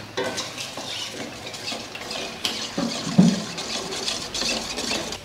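Metal ladle stirring coconut milk and green curry paste in a stainless steel pot, with irregular scraping and clinking against the pot's sides and bottom.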